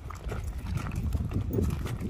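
Footsteps crunching on loose gravel, several people walking in an irregular rhythm, over a steady low rumble.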